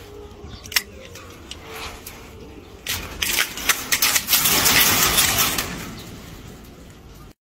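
Loud rattling and scuffling clatter starting about three seconds in and lasting about three seconds, with sharp knocks: a chain-link fence shaken and the handheld phone jostled as a macaque snatches a toy through the fence.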